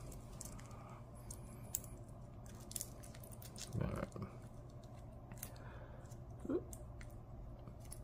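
Small, sharp metal clicks and ticks of a steel spring bar and spring bar tool being worked into a rubber watch strap. A short low vocal sound comes about halfway through.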